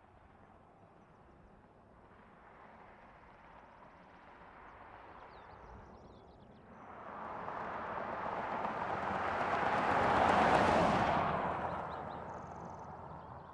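Mercedes-Benz GLS 580 SUV driving past: tyre and engine noise swells as it approaches, peaks as it goes by, then fades away.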